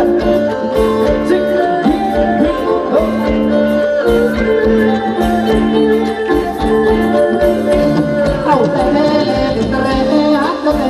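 Live band music for Thai ramwong dancing: a sustained melody over a steady, regular drum beat.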